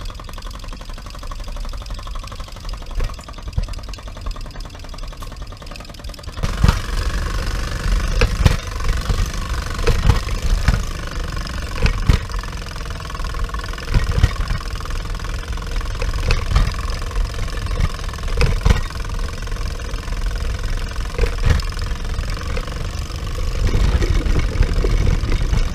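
Mamod model steam traction engine running and driving along, heard close up from on board: a steady mechanical chugging and rattle from its small single oscillating-cylinder engine and gearing. About six seconds in it grows louder and rougher, with occasional sharp knocks as it travels on.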